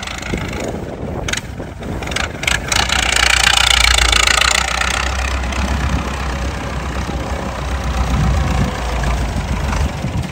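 Massey Ferguson 185 tractor's four-cylinder diesel engine running steadily at low speed, growing louder for a couple of seconds about three seconds in; the engine still runs very quiet, a sign of a well-kept engine.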